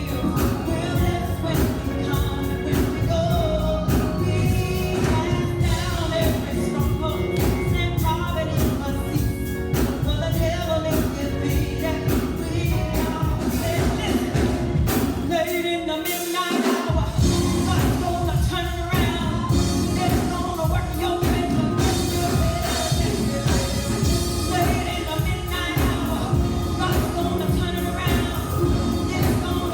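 Gospel praise music with singing over a full band with a steady beat; the bass and drums drop out for about a second midway, then come back in.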